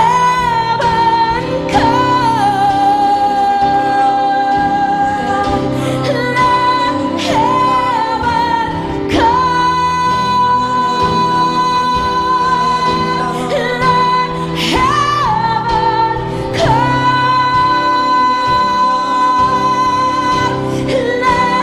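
Live church worship band playing a slow praise song: a singer holding long notes with vibrato over drums, keyboard and guitar, with regular drum and cymbal strikes.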